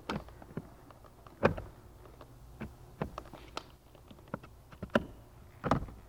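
Scattered plastic clicks and knocks as a replacement HVAC blower motor is pushed and twisted into its plastic housing, working its retaining clips into place. The sharpest knock comes about a second and a half in, with a few more near the end.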